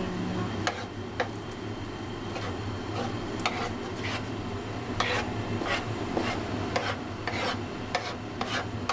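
Spatula stirring and scraping tomatoes in a frying pan, with irregular scrapes and taps against the pan about once or twice a second over a light sizzle. The tomato sauce has just been thickened with a cornstarch slurry. A steady low hum runs underneath.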